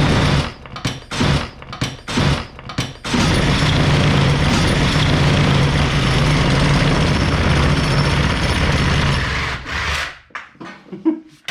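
A power tool is switched on and off in several short bursts, then runs steadily for about seven seconds and stops near the end.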